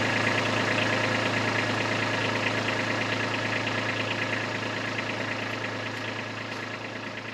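Kubota B2301 tractor's three-cylinder diesel engine running steadily, growing gradually quieter over several seconds.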